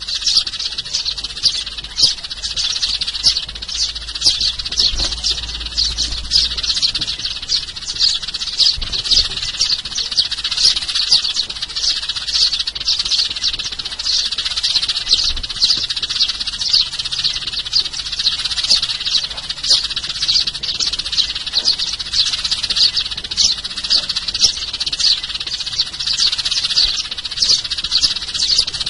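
A flock of sparrows chirping and chattering continuously: many short, high chirps overlapping at several per second.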